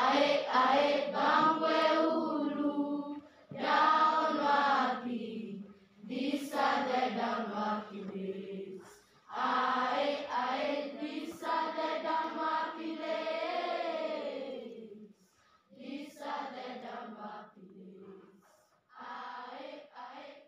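Voices singing a chant-like teaching song in phrases of a few seconds with short breaks between them; the last two phrases are much softer.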